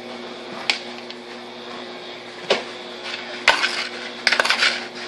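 Plastic pitcher holding sugar and drink-mix powder handled and tipped about for mixing: a few light knocks, then a short rattle near the end.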